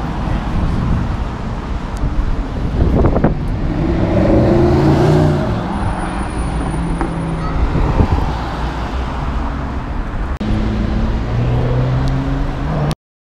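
City street traffic: car engines running and cars passing, with one engine close by and loudest a few seconds in. The sound cuts off suddenly near the end.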